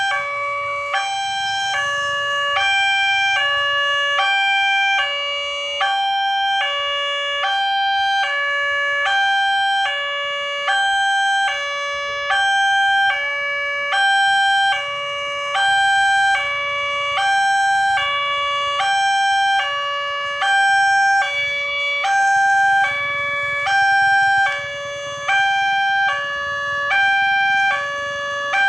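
Level-crossing warning siren of a Nataya Putra barrier, played through a horn loudspeaker: a steady two-tone signal, a lower and a higher tone alternating back and forth about every two-thirds of a second, warning that a train is coming.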